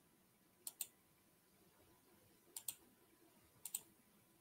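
Three quick double clicks at a computer, against near silence: one pair about a second in, another near two and a half seconds, a third near the end.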